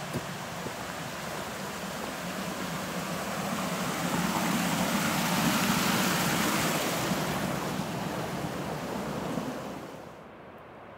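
Small forest creek rushing and splashing over rocks, swelling to its loudest midway, then dropping away sharply near the end.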